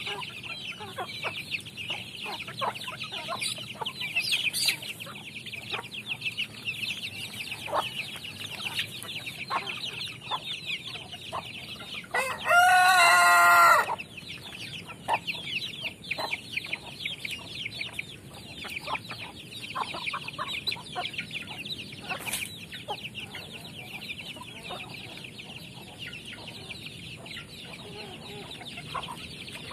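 Free-range chickens clucking and cheeping continuously as they feed. About halfway through, a rooster crows once, loud, for about a second and a half.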